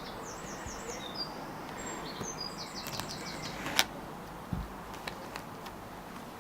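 Small birds chirping in the background, two quick runs of short high notes in the first three seconds, over a steady background hiss. A single sharp click comes a little before four seconds in, with a few fainter ticks after it.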